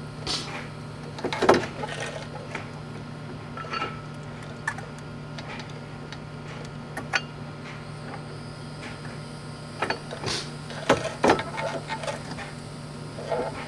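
Scattered metal clinks and knocks of tools and brake parts being handled while the brake rotor and caliper go back on the wheel hub. They are loudest about a second and a half in and in a cluster near ten to eleven seconds, over a steady low hum.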